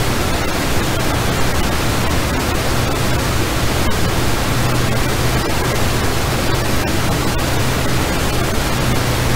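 IHI XF9-1 low-bypass fighter turbofan running with its afterburner lit, held at one thrust step of a maximum-thrust test: a loud, steady rushing noise with a low hum beneath.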